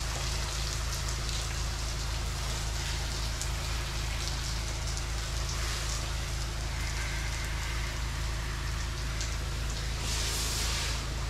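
Pressure washer spraying water onto a surface: a steady hiss over the constant drone of its motor and pump.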